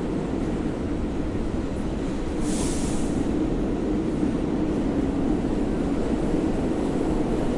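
New York City subway train running with a steady low rumble, and a brief high hiss about two and a half seconds in.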